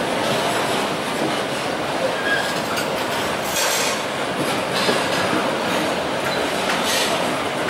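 Covered hopper wagons of a freight train rolling past close by on a steep upgrade: a steady rumble and clatter of steel wheels on the rails, with short bursts of high-pitched wheel noise about three times.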